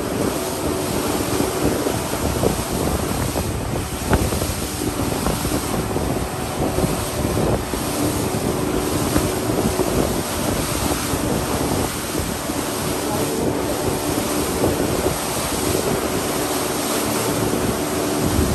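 Small boat under way: a steady engine drone under water rushing past the hull, with wind buffeting the microphone.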